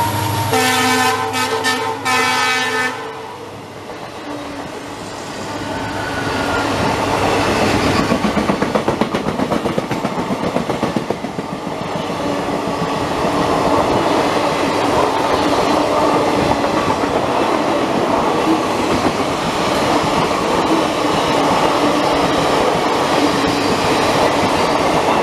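Express train passing at speed: a multi-tone train horn sounds in several short blasts about half a second in. Then the ICF coaches rumble and clatter over the rail joints, the wheel-beats strongest around eight to eleven seconds in, and the sound settles into a steady rolling noise.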